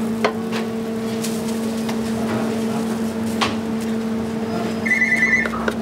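Steady electrical hum of kitchen equipment with a few scattered clicks and knocks, then, about five seconds in, a short fast run of high electronic beeps like an appliance or timer signal.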